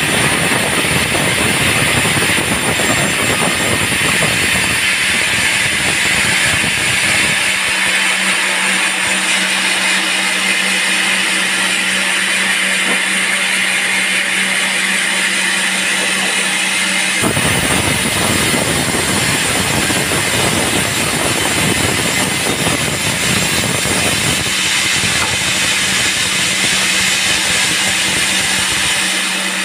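Sawmill band saw running with a steady hum, sawing a teak log. A rougher, deeper noise is added for the first several seconds and again for most of the second half.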